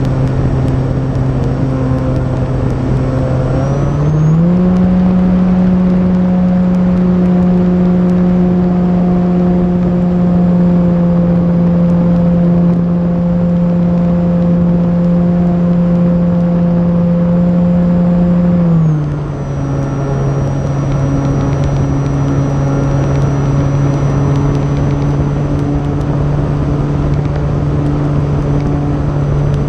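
E-flite Timber RC plane's electric motor and propeller running steadily, heard from the onboard camera with wind rushing past. The throttle comes up about four seconds in, raising the pitch, holds there, and eases back down about two-thirds through.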